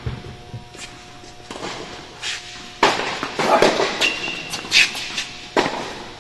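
Tennis ball struck back and forth with rackets in a rally, sharp pops that ring in the large indoor court hall, the loudest hits about three seconds in and near the end, with footsteps on the court between them.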